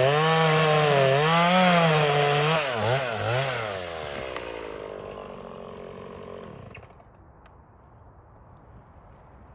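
Stihl MS180 two-stroke chainsaw running, its engine speed rising and falling, blipped twice about three seconds in, then winding down and stopping about seven seconds in. Faint ticks follow.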